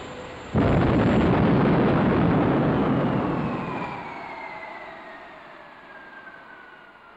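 Early Whittle jet engine on its test bed bursting into a sudden loud roar about half a second in, as flame belches from its combustion chambers. The roar dies away over the next few seconds while a falling whine shows the engine running down.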